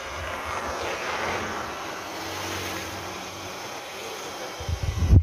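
Car cabin noise while driving along a paved street: a steady engine and road hum. Near the end comes a brief cluster of loud, low thumps.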